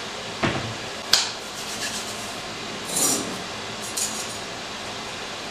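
Kitchenware being handled: four short clinks and knocks of utensils and dishes, the sharpest about a second in.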